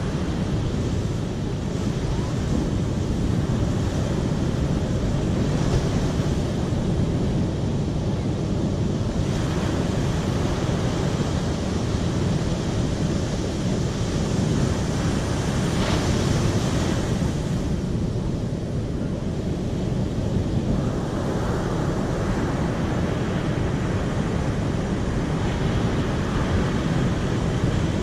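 Steady rushing of flowing water, brighter in its hiss for stretches of a few seconds and then duller again.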